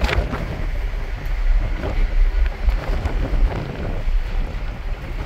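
Strong wind buffeting the microphone on a ferry's open deck: a loud, gusty low rumble that swells and drops.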